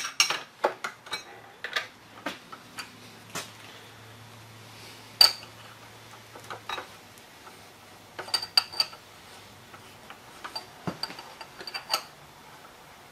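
Scattered sharp metal clinks and taps from steel tooling being handled at a milling machine, the loudest about five seconds in and a quick run of them around eight seconds. A faint low hum lies under the first half.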